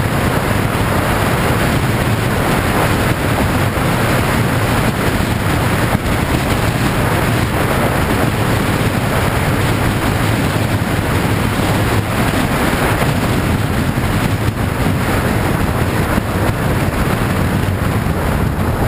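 Steady wind rushing over the microphone of a motorcycle at road speed, with the engine running underneath.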